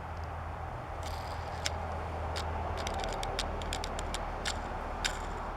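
Scattered light clicks and crackles of plastic packaging and a small die-cast toy car being handled, over a low steady hum.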